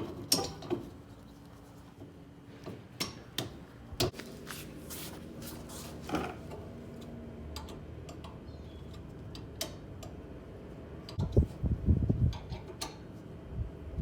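Scattered metallic clicks and knocks of hand tools working on a car's rear hub and brake assembly, with a cluster of low thumps near the end.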